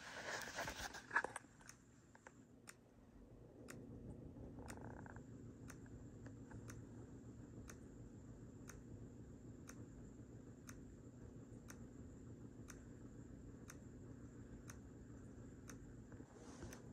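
Faint clock ticking about once a second, in step with the seconds flipping on a flip-clock app, over a low steady hum. A brief rustle of handling comes in the first second or so.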